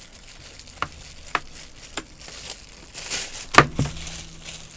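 A braided keyboard cable and its packaging being handled: crinkling and rustling with several sharp clicks and knocks, the loudest a pair about three and a half seconds in.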